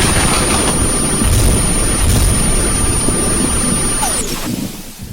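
Film sound effect of a loud, steady jet-like rushing noise with a thin high whine over it. It falls away about four seconds in, with a short downward-gliding tone.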